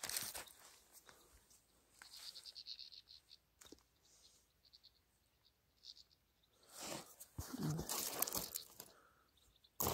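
Close rustling, crunching and crinkling of hands and clothing working among dry grass and twigs while freeing a trapped goldfinch from a snare line, loudest in a long spell of rustling near the end. A brief run of high chirps comes about two seconds in.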